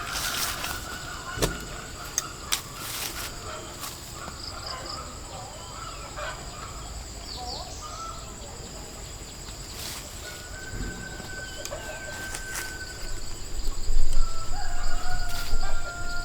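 A rooster crowing, with one long held crow lasting about two seconds partway through and shorter crows at the start and near the end, over a faint steady high insect drone. Louder low noise comes in near the end.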